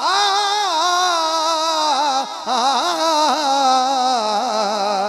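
A man singing a devotional Urdu naat into a microphone, holding long, wavering, ornamented notes, with a brief break for breath about two seconds in.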